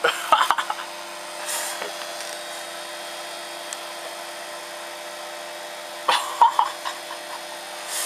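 Microwave oven running with a light bulb glowing inside: a steady hum made of several low tones. A few short louder sounds come near the start and again about six seconds in.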